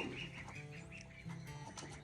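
Background music of held, steady notes, with bird calls mixed in.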